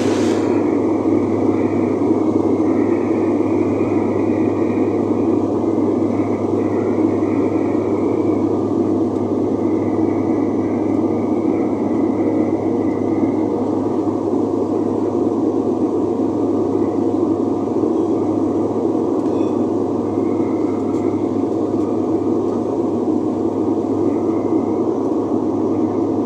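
Steady drone of a turboprop airliner's engines and propellers heard from inside the cabin, with the landing gear down on approach to land. A brief click right at the start.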